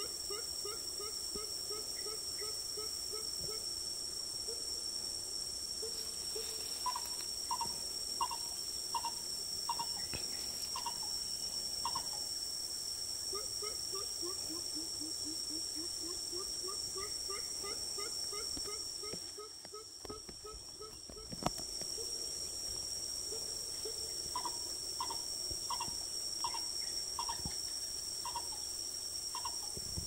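Steady high-pitched insect chorus, with a coucal's repeated series of low, quick notes, about four a second, rising and falling in pitch, and slower strings of higher bird notes in between.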